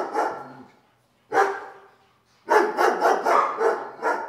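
American Bulldog snoring heavily in her sleep: loud, fluttering snores, a short one about a second and a half in and a longer one from about two and a half seconds.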